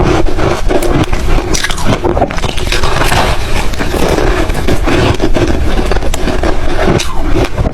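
Ice being crunched and chewed in the mouth: a dense, irregular run of sharp cracks and crackles.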